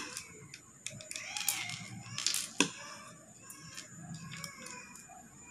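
Metal fork and spoon clinking and scraping against ceramic plates while eating, with several sharp clinks. Faint high whimpering cries in the background.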